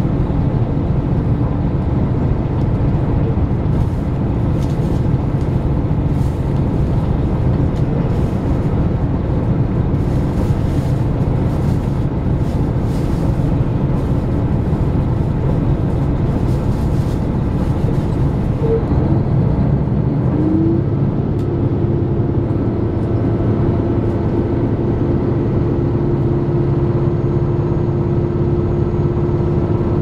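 Steady running noise inside a KiHa 261 series diesel limited express at speed: the low rumble of the diesel engines and wheels on the rails. A steady higher hum joins about two-thirds of the way through.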